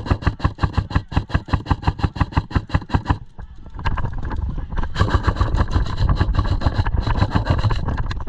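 Airsoft gun firing rapidly, about eight shots a second, in two long strings with a short break about three seconds in.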